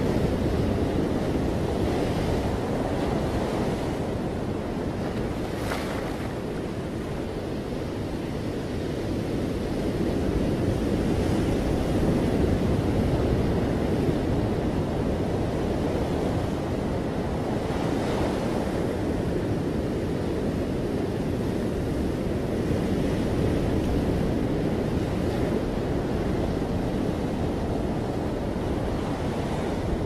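Ocean surf breaking and washing up on a beach: a continuous rushing that eases a little about seven seconds in and swells again from about ten seconds.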